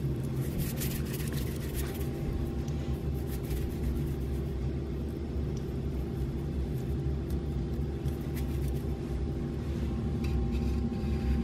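Steady low machine hum with several constant tones, with a few faint clicks near the start and near the end.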